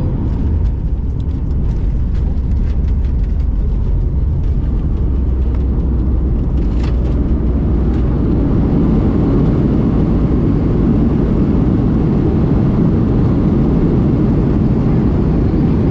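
Steady low rumble of a vehicle on the move, growing a little louder about halfway through.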